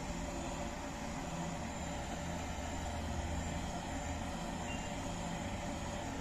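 A steady mechanical hum with hiss, holding at an even level.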